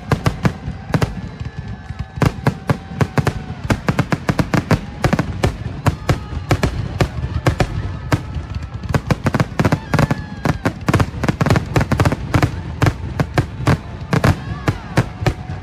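Fireworks display going off in rapid succession: many sharp bangs and crackles a second, one on top of the next, over a low rumbling boom.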